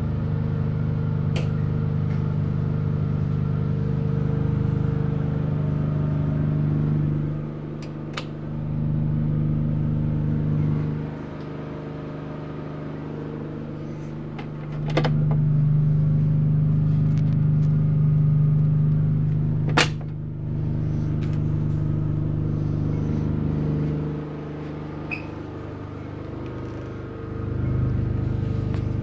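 Generator running with a steady low hum that steps louder and quieter several times, with a few sharp clicks; the loudest click comes about twenty seconds in.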